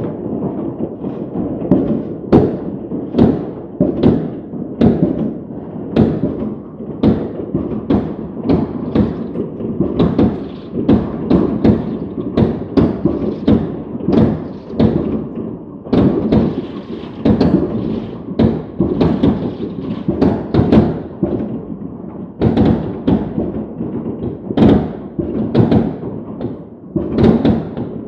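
Fireworks going off in a continuous barrage: irregular booms and bangs, one or two a second, over a steady rumble.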